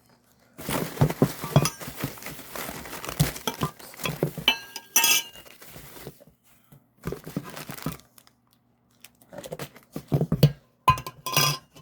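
Packaging being handled during an unboxing, in irregular bursts of crinkling and rustling. A few times hard items clink together with a brief ringing note, about four and a half seconds in and near the end.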